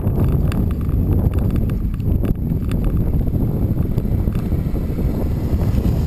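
Wind buffeting the microphone of a camera riding on a bicycle, over a steady rumble and scattered rattling clicks as the bike rolls down a gravel road.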